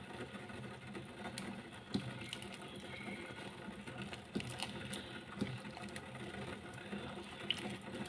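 Metal ladle scooping chicken soup from a stainless steel pot and pouring it into a bowl: a few light clinks and splashes over a steady low hum.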